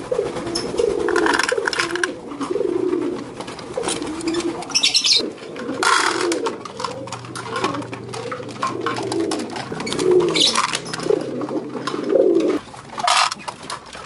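Domestic pigeons cooing, with low, wavering coos overlapping throughout. Scattered sharp clicks and rustles sound over them.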